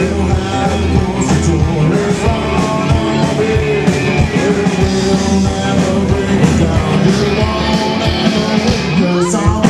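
Rock and roll band playing live and loud through a PA: electric guitar over a steady drum beat, with singing.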